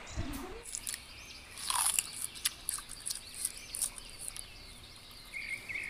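Birds chirping, a scatter of short high chirps and ticks, busiest about two seconds in.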